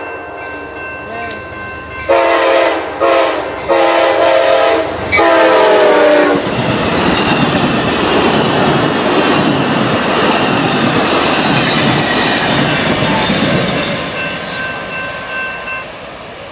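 An Amtrak passenger train's locomotive horn sounds four blasts of mixed length, the last one dropping in pitch as the locomotive passes. The train then rushes by with clattering wheels, and the noise fades away near the end.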